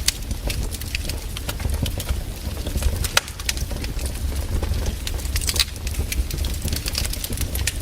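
Campfire wood burning, with irregular sharp crackles and pops over a steady low rumble.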